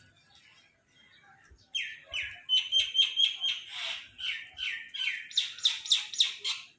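Crows cawing in a rapid string of short, falling calls, several a second, that starts loudly about two seconds in.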